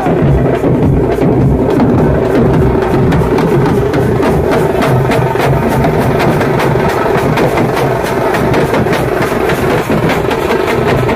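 Procession drum band playing: several stick-beaten drums, large bass drums among them, beating out a fast, even rhythm.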